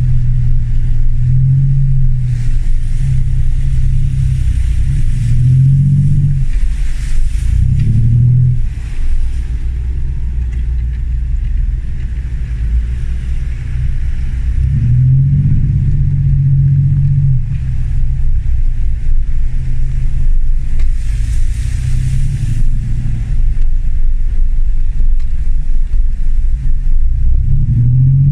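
Land Rover Discovery 1's 300Tdi four-cylinder turbodiesel working off-road, its note rising and falling again and again as the throttle is worked. Twice a rushing hiss lasts a couple of seconds.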